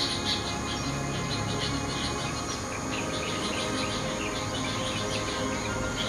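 Rapid, high-pitched chirping repeating many times a second, over soft background music with steady low held tones.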